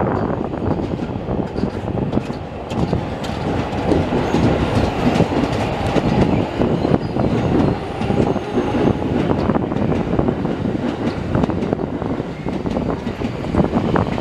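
Electric commuter train running on the track: a loud, steady rumble with many short clacks and knocks from the wheels and running gear.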